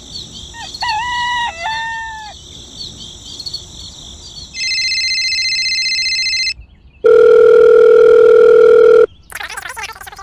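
A rooster crowing about a second in over faint insect-like chirping. Then a telephone rings with a rapid electronic trill for about two seconds, followed by a louder steady electronic phone tone lasting about two seconds.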